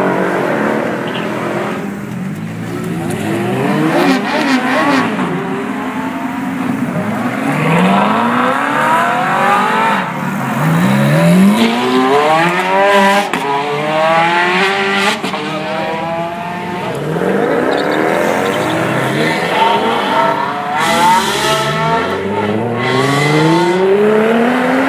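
Several supercars, a Ferrari F430 V8 among them, accelerating hard one after another, each engine revving up steeply and dropping in pitch at quick upshifts, over and over.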